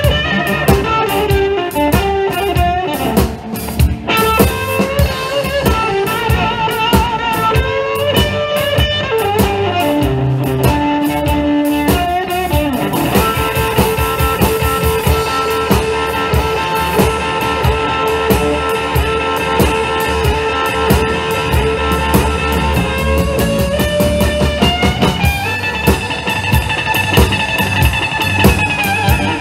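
Live blues band playing an instrumental break: electric guitar lead over a drum kit, with several long held notes in the middle.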